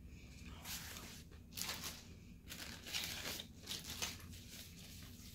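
Crunchy chewing of a crispy fried chicken wing, heard as several short crackling bursts.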